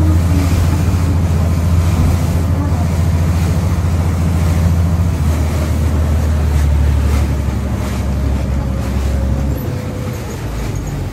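Sightseeing boat's engine running with a steady low drone over water rushing and splashing along the hull. The drone steps down about halfway through and again near the end as the boat throttles back.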